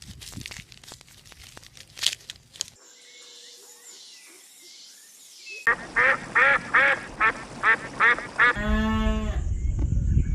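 A duck quacking: a quick run of about eight quacks, followed by one longer call. Scattered clicks and faint sounds come before it.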